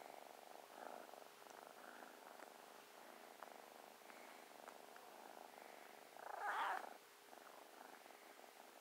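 Tabby kitten purring steadily and softly, close up. About six and a half seconds in there is a brief louder rustle as the kitten shifts in the blanket.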